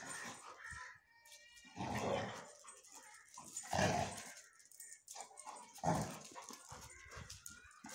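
Two dogs play-fighting, letting out four short, rough growls about every two seconds.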